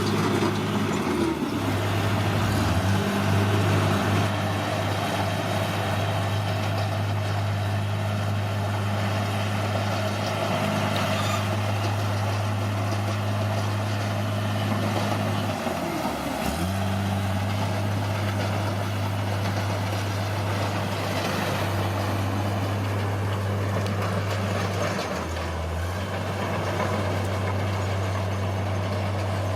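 Heavy diesel engine of earthmoving machinery running steadily under load, with a low hum and a few brief dips in engine speed: near the start, about halfway, and near the end.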